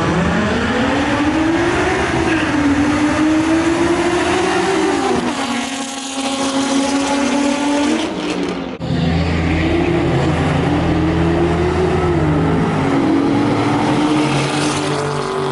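Car engine accelerating hard through the gears, its pitch climbing and then dropping back at each shift. A sudden break comes about nine seconds in, followed by a second run of the same climbing and dropping.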